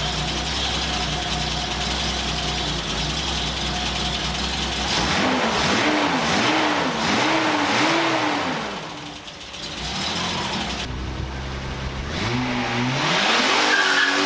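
Datsun 280Z straight-six engine idling steadily, then blipped through four quick revs in a row. After a short lull it revs up again, climbing near the end.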